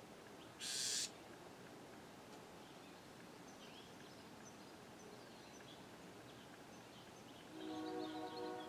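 Bewick's wren giving one short, harsh buzz about half a second in, the scolding call it uses when a person is near its nest. Faint high chirps follow, and near the end a steady hum of several even tones comes up.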